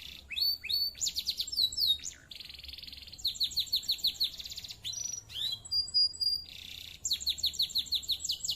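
Domestic canary singing without pause, in a varied song: fast runs of repeated down-sweeping notes, buzzy rolling phrases, and a held high whistle.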